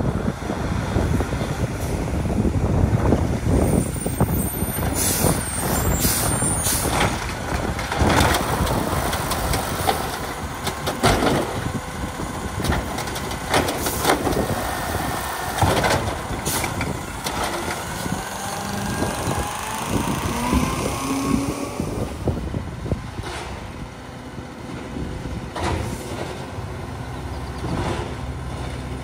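Peterbilt 520 automated side-loader garbage truck running and driving past on its diesel engine, with several sharp air-brake hisses along the way.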